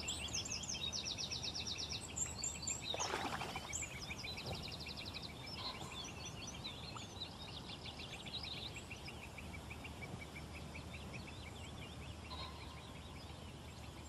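Small songbirds singing and twittering, with fast trills of many rapid notes, busiest in the first few seconds, and a brief lower call about three seconds in.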